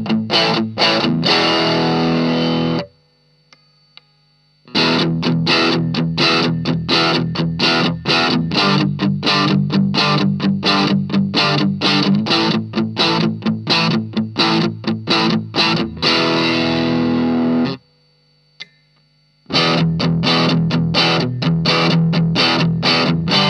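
Electric guitar, a Fender Stratocaster, played through an Ibanez Tube Screamer Mini overdrive pedal into a Marshall MG15 amp. It plays a distorted riff of fast picked notes, and each phrase ends on a ringing chord that is cut off sharply. Twice the playing stops for about two seconds, leaving only a faint amp hum.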